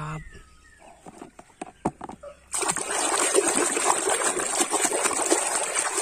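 A few light clicks of handling, then about two and a half seconds in, a hand splashing and churning foamy water in a tub, a continuous sloshing that runs on to the end.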